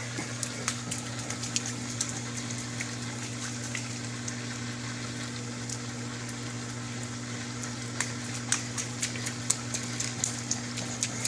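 Rain falling, with many sharp irregular ticks of drops and splashes that come thicker near the end, over a steady low hum.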